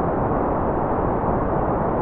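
Continuous generated white noise: a steady, even rushing hiss with no rhythm or change in level, its sound mostly in the lower and middle range with little treble.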